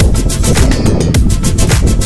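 Electronic dance music with a fast, steady beat and heavy bass.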